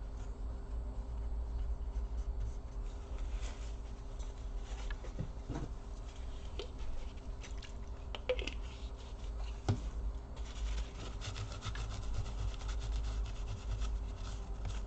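Kitchen paper dampened with alcohol rubbing over a laptop's processor and heatsink, wiping off old thermal paste. It is a series of scrubbing strokes with a couple of light knocks, busier in the last few seconds.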